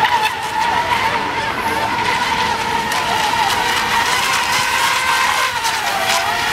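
Several Eco Expert Junior electric model racing boats running together: a high, steady electric-motor whine, with other motor whines sliding up and down in pitch as boats pass and turn.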